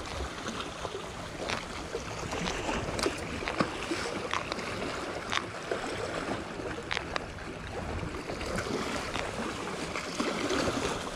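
Seawater lapping and sloshing against the shore wall, with scattered light clicks of fishing tackle being handled.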